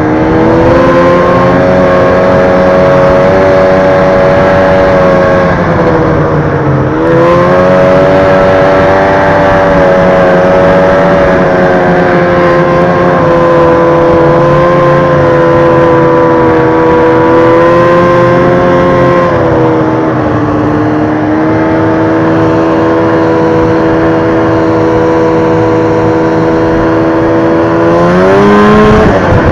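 Arctic Cat snowmobile's two-stroke engine running hard at speed. The pitch holds high and steady, dips briefly about six seconds in and again around twenty seconds as the throttle eases, then climbs sharply near the end.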